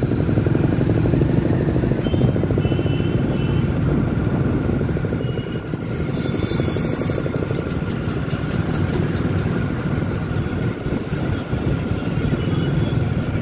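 Motorcycle engine running steadily on the move in street traffic among other motorbikes, with a few short high beeps about two seconds and about five seconds in.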